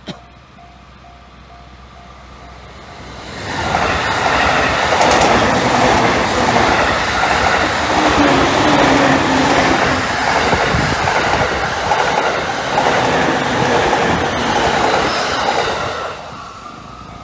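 A Takasaki Line electric train passes over the level crossing, rising to a loud, dense rush about three seconds in, with the wheels clattering over the rail joints. It fades away near the end. The crossing's warning bell rings faintly before the train arrives and again as it fades.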